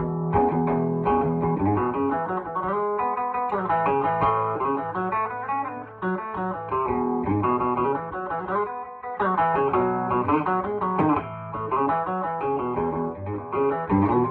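Gibson Les Paul Junior electric guitar with its P90 pickup, played amplified with volume and tone controls all the way up: a continuous passage of chords and single-note lines.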